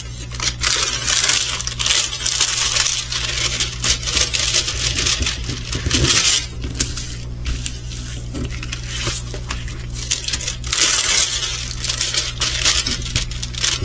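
Small plastic bags of resin diamond-painting drills rattling and clicking as they are handled and shaken, a dense patter of tiny hard beads with brief lulls.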